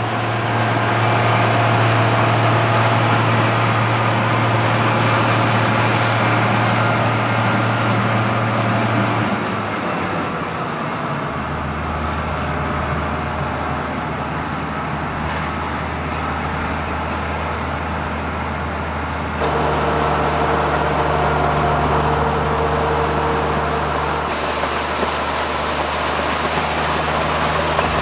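1975 Claas Senator 85 combine harvester working in wheat: its six-cylinder diesel engine and threshing gear run with a steady drone. The drone's pitch and tone shift about ten seconds in and again about twenty seconds in.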